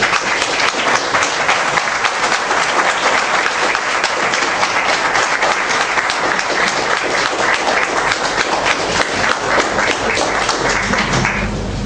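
Audience applauding: a steady round of clapping that dies away near the end.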